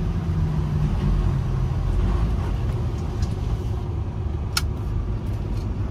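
Semi-truck's diesel engine running steadily with road rumble, heard from inside the cab while driving. A single sharp click about four and a half seconds in.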